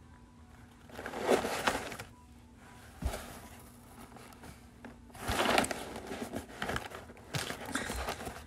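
Cardboard shipping box being handled and pressed on, with two bursts of rustling and scraping cardboard, about a second in and again around five seconds, and a dull thump around three seconds.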